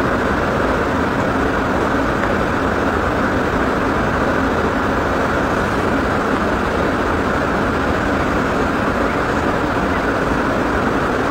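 Steady road noise inside a moving car's cabin: an even rush with a low rumble underneath that does not change.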